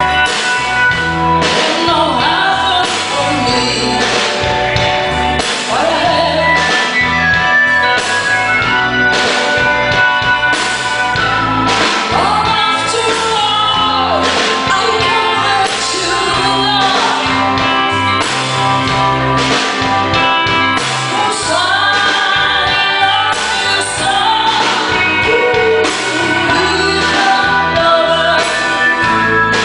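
A live band playing a song: a singer's voice over guitar, bass and a steady drum beat.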